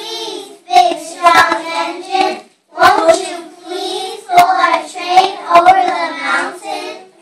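A group of children singing together in loud, sustained phrases with short breaks between them, with a few sharp claps.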